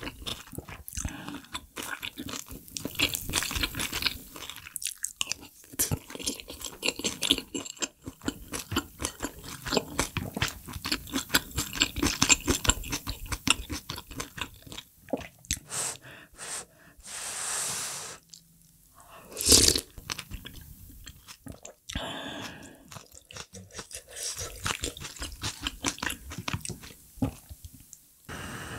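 Close-miked chewing and crunching of food in quick irregular clicks, with a longer hissing noise and one loud short burst a little past halfway.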